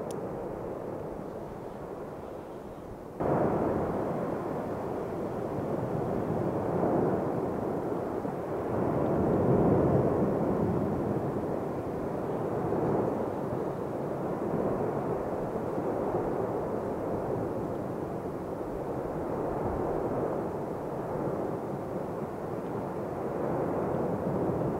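Cumbre Vieja volcano erupting from its lava fountains: a continuous rumbling rush that jumps louder suddenly about three seconds in, then swells and eases in slow waves.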